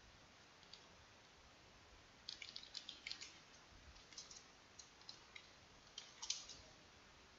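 Faint keystrokes on a computer keyboard: a quick run of clicks about two seconds in, then scattered single taps, with a louder few about six seconds in.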